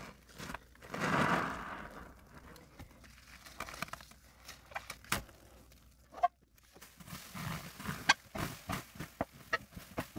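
A soapy sponge squeezed by gloved hands in thick suds: a wet squelch about a second in, then crackling, popping foam, and a busy run of small squishes and clicks near the end.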